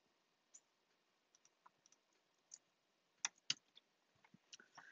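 Faint computer keyboard and mouse clicks: a scattered run of keystrokes, then two sharper clicks about three and a half seconds in.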